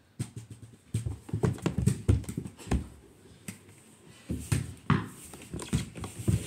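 Irregular thumps and knocks of an indoor mini-basketball game: a small ball bouncing and striking the door-mounted hoop and backboard.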